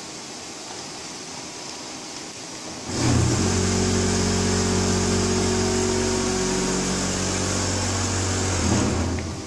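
Servo-driven feed auger of a stainless-steel powder auger filler spinning up about three seconds in, running with a steady motor hum for about six seconds while it doses powder into a bag, then winding down near the end.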